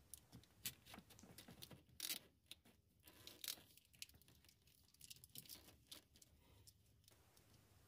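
Faint scratching and clicking of corrugated plastic split wire loom being worked over electrical cables by hand, with a couple of louder clicks about two and three and a half seconds in.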